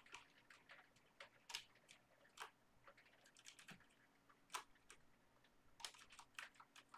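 Computer keyboard keys tapped sparsely and irregularly, singly and in short runs, over a faint steady hum.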